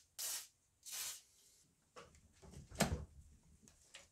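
Two short hisses from an aerosol spray can in the first second, then a dull knock about three seconds in as the fuel rail and injectors are pressed into place.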